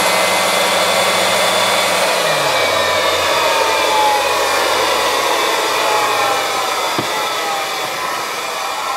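Valve refacing machine running with its stone grinding the face of a Chrysler 440 big-block valve: a steady whirring grind. A low hum drops in pitch and fades a few seconds in, a higher whine slowly falls in pitch, and there is a single short knock near the end.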